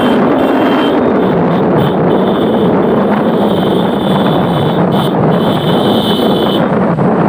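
Motorcycle engine droning steadily while riding, with wind rushing over the microphone. A high, thin buzz comes and goes over it.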